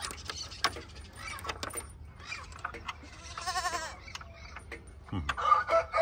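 A rooster crowing, starting near the end and the loudest sound here. About halfway through there is a shorter, fainter animal call that wavers in pitch.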